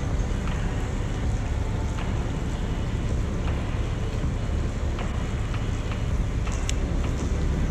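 Steady low outdoor rumble throughout, with a few light clicks scattered through it.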